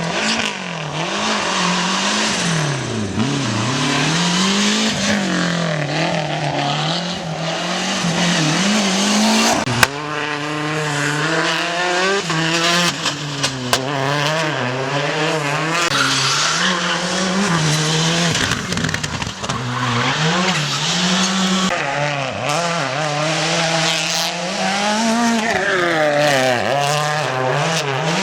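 Rally car engines revving hard, their pitch rising and falling every second or two as the cars are driven through corners, over a hiss of tyre noise. There is a sudden click about ten seconds in.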